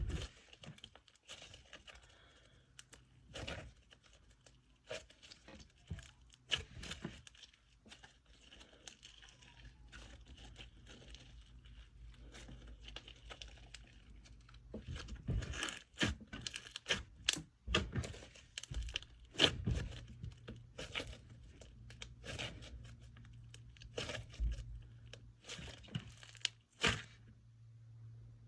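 Glossy slime being worked by hand, stretched, folded and squished, giving irregular wet crackles and sticky pops, which grow busier and louder about halfway through. Under it runs a faint steady low hum.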